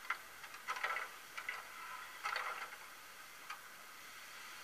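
Sound decoder in a Brawa model of the PKP Pt31 steam locomotive, standing still, playing its steam-loco sounds through the model's small speaker: five short, irregular clicks and hissy clatters in about three and a half seconds over a steady low hiss.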